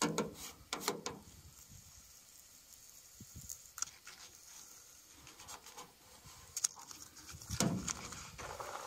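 Paper stencil backing rustling and crinkling as it is peeled back by hand from a truck door, with a few short rustles at the start and a louder crinkle near the end.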